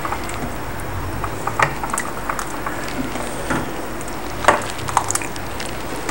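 A ladle scooping thick soup from a steel pot and pouring it into a ceramic bowl, with scattered light clinks and knocks of the ladle against the pot and bowl, the sharpest about four and a half seconds in, over a steady low hum.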